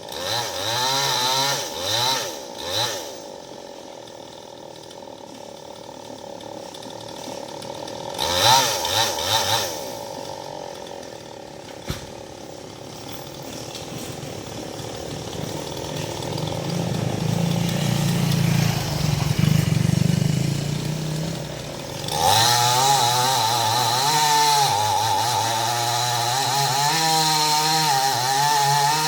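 Maestro two-stroke chainsaw blipped up and down in short revs, idling between, then run hard through the second half, its pitch sagging and wavering as it cuts into branch wood.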